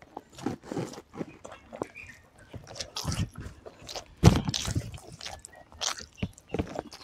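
Close-up eating sounds: chewing a mouthful of rice and curry, with fingers squishing and mixing rice on a banana leaf, in a run of short irregular wet clicks. One louder knock comes a little over four seconds in.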